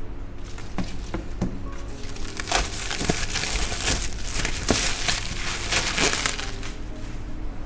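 Plastic bubble wrap crinkling and rustling as hands handle and pull at it, with scattered sharp clicks; the rustling is thickest around the middle and tails off about a second before the end.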